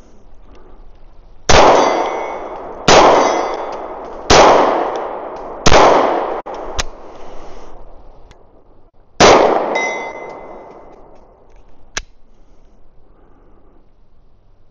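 FN Reflex 9 mm pistol firing five shots, the first four about a second and a half apart and the fifth after a longer pause, each echoing away. Steel target plates ring with a thin metallic tone after the hits, and a couple of fainter sharp clanks come between shots.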